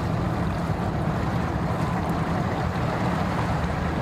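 Bass boat's outboard motor running steadily in gear as the boat is powered onto its trailer, with a low rumble and the propeller churning the water.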